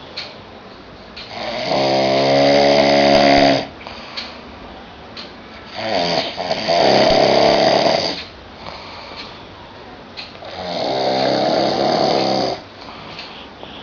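A person snoring very loudly: three long snores, each about two seconds, coming every four to five seconds, with much quieter breathing between.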